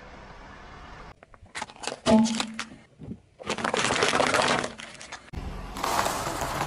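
Car tyre rolling slowly over objects and crushing them, in quick separate takes: sharp cracks with a short pop about two seconds in, a dense crackling crunch as paper cups are flattened, then the crunch of a pile of pretzel sticks snapping under the tread.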